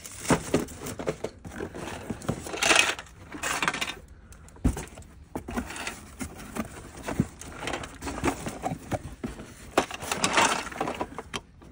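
Cardboard model-kit boxes being shuffled and pulled out of a cardboard carton by gloved hands: irregular rustling and scraping with light knocks, and one sharper knock a little before the middle.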